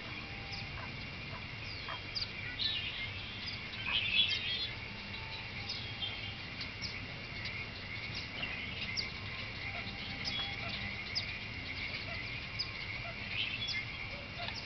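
Outdoor evening ambience: birds chirping in many short calls over a steady high-pitched background chorus, with a louder flurry of chirps about four seconds in.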